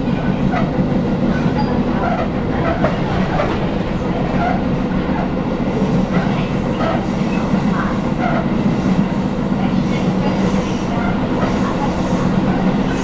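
Tobu 10000 series commuter car running, heard from inside: a steady low rumble with repeated knocks and short metallic squeaks and rings from the wheels and bogie. The knocking is the pounding of badly flatted wheels, and the metallic noise comes from a bogie with an abnormal noise.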